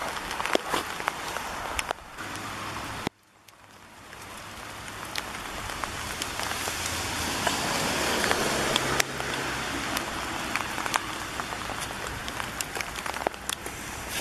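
Rain pattering steadily, with scattered sharp ticks of drops. It cuts out abruptly about three seconds in and swells back up over the next few seconds.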